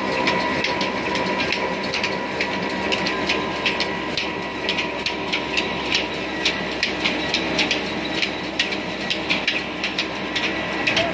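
Old stationary diesel engine running steadily, driving a flour mill through flat belts, pulleys and a line shaft, with a sharp rhythmic clicking about three times a second.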